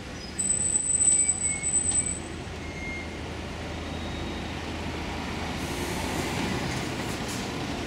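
Street traffic. A double-decker bus passing close gives a high-pitched brake squeal lasting about two seconds near the start. A Scania tipper lorry's diesel engine then rumbles louder as it pulls past close by.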